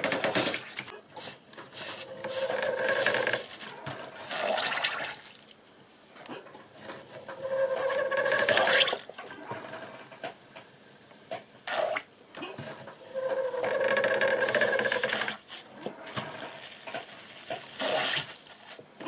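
Pedal-driven syringes squirting jets of acetone through fine needles into a plastic tub, in repeated spurts a few seconds apart, each with a spraying hiss and a squeak from the pedal-and-cable mechanism.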